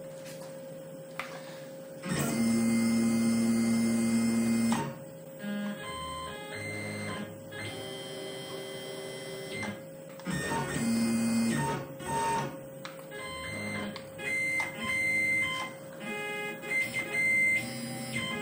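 Tormach PCNC 1100 mill's stepper-driven axes jogging in a series of short moves, each a steady whine at its own pitch with pauses between, the longest and loudest move starting about two seconds in. A steady hum runs underneath.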